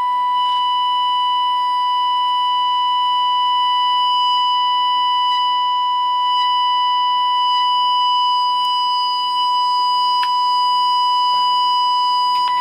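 Steady audio test tone from the speaker of a Qiuxin HX108-2 medium-wave transistor radio kit: the tone-modulated 465 kHz IF test signal, received and demodulated while the IF transformer cores are trimmed for maximum output. A faint click comes about ten seconds in.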